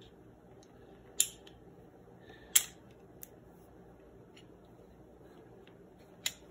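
Sharp metallic clicks and snaps of small parts being fitted on a pump-up air rifle's pump linkage, a pin with a retainer clip: two loud clicks about a second and two and a half seconds in, a faint one just after, and another loud click near the end.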